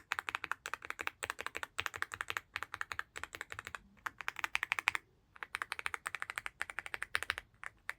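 Rapid typing on a Leobog Hi75C Pro aluminium mechanical keyboard: quick runs of clacky keystrokes in bursts, with two short pauses around the middle.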